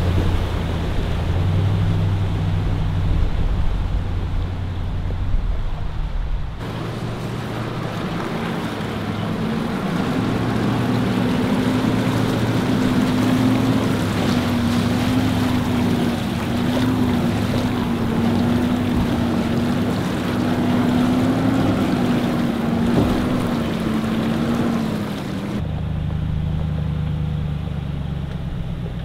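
Nissan Patrol's V8 engine running as the 4WD drives through a shallow river crossing, with water rushing and splashing around the wheels for most of the time. Near the end only the engine is heard, running steadily as the vehicle moves on a dirt track.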